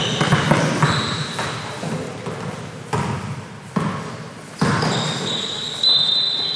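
Basketball bouncing on a hardwood gym floor during play, separate sharp bounces ringing in the large hall's echo.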